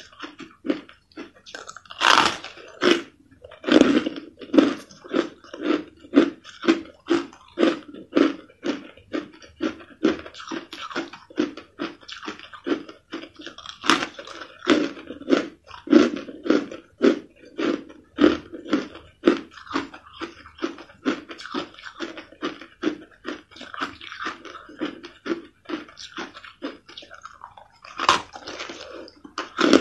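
Crushed ice being bitten and chewed close to the microphone: a steady run of crunches about two a second, with a few louder bites about two and four seconds in and near the end.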